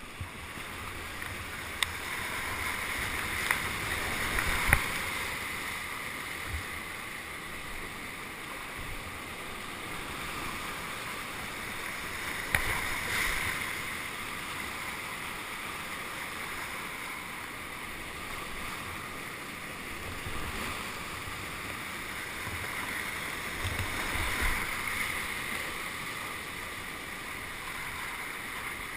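Rushing whitewater of a creek heard from a kayak on the water, a steady hiss with a few sharp knocks in the first half.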